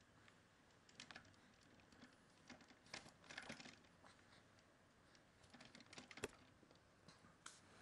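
Near silence with a few faint, scattered clicks and small taps; the sharpest single click comes about six seconds in.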